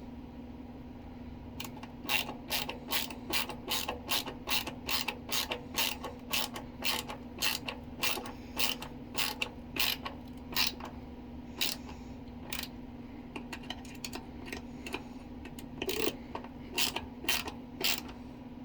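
Ratcheting hand screwdriver clicking, about two clicks a second, as it drives a screw into plywood without a pilot hole, over a steady low hum.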